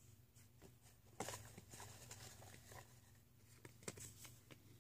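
Near silence: faint rustling with a few light clicks from hands handling things, the sharpest about a second in and near the end, over a low steady room hum.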